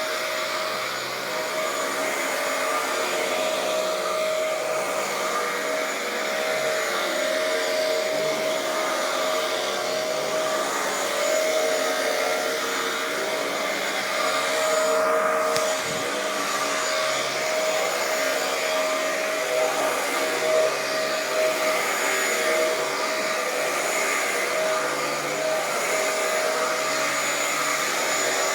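Dyson DC07 All Floors upright vacuum cleaner running steadily while vacuuming carpet, a continuous motor whine and suction rush with slight shifts in pitch as it is pushed back and forth.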